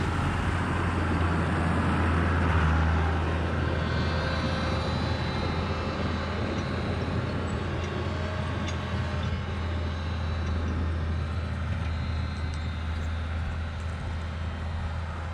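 Farm tractor engine running steadily at a low, even speed.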